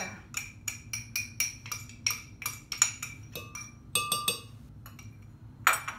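A spoon tapping and scraping quickly against a jar, about four taps a second, as thick mole paste is worked out into a blender jar, then a few ringing clinks and a single knock near the end.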